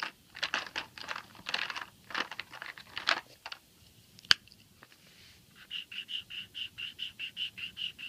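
Felt-tip marker strokes scratching on a milk carton, then one sharp click about four seconds in, typical of a marker cap snapped shut. From about halfway, an even, high-pitched chirping pulses about four times a second.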